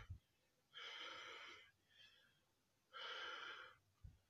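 A man breathing heavily to catch his breath after a set of weight reps, with two long, loud breaths and a fainter one in between. There is a soft low thump at the start and another near the end.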